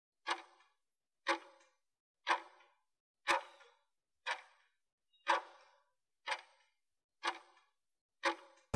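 Countdown timer ticking once a second, nine sharp clock-like ticks counting down the last seconds of a work interval.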